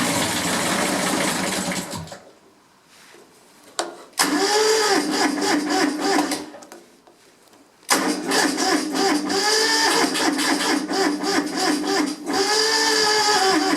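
Kubota B7001 three-cylinder diesel tractor engine cranked on its electric starter in three bursts with pauses between, the starter's whine pulsing unevenly, without the engine catching. A hard cold start: the engine is reluctant to fire at about 10 °C, and the owner suspects a weak battery.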